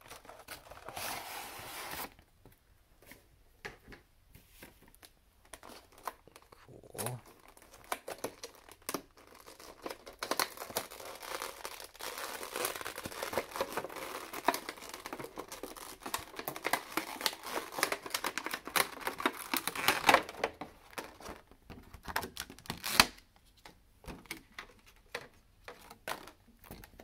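Plastic wrapping crinkling and tearing as a Pokémon trading card collection box is unwrapped by hand. The crinkling comes in stretches with quieter gaps, and there are a few sharp clicks, the loudest about 20 and 23 seconds in.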